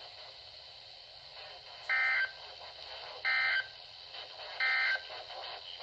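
Three short bursts of NOAA Weather Radio SAME digital data tones, each about a third of a second long and about 1.4 s apart, over faint receiver hiss. They are the end-of-message code that closes a tornado warning broadcast.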